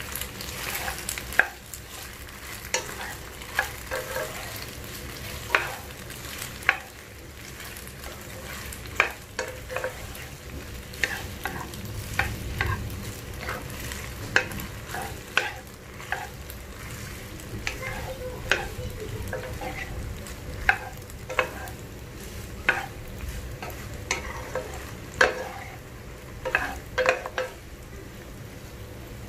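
Wooden spoon stirring macaroni and tomato sauce in a hot coated frying pan, with irregular knocks and scrapes of the spoon against the pan over a steady frying sizzle.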